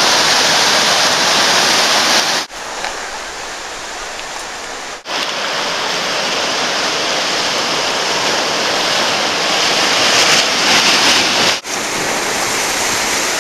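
Whitewater rapids rushing loudly and steadily. The roar breaks off briefly about two and a half seconds in, is quieter for the next few seconds, then returns louder. It breaks off once more near the end.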